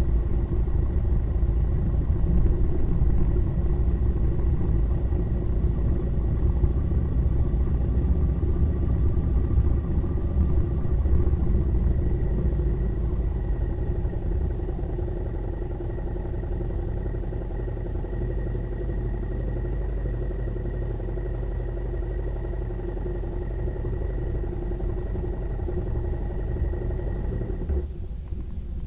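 A road vehicle's engine running steadily while on the move, under a heavy low rumble. Near the end the engine note and the rumble drop away.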